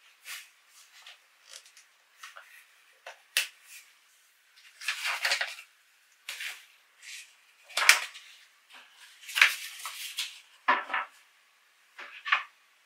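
Handling noises of a wooden table frame and a canvas folding bag: fabric rustling and scuffing broken up by short, sharp clicks and knocks of wood and fittings, a few of them loud.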